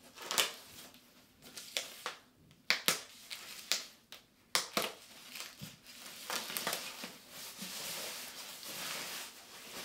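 Protective packaging crinkling and rustling as it is pulled off a model jet's wing. There are sharp crackles through the first half and a steadier rustle from about six seconds in.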